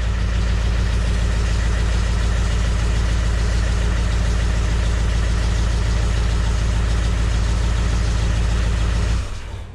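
Land Rover Discovery 1 diesel engine idling steadily through its newly fitted exhaust, cutting off about nine seconds in.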